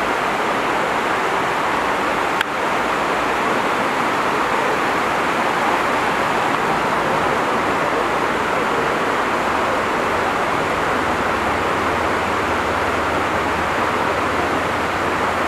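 Steady rush of a river's white water churning below, with one sharp click about two and a half seconds in.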